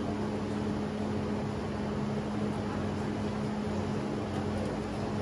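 Steady mechanical hum with a low drone over a even hiss, unchanging throughout.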